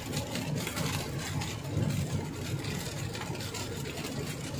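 Car cabin noise while driving on a rain-soaked road: a steady low rumble of engine and road under the hiss of tyres on wet bitumen, with faint taps of rain on the windscreen.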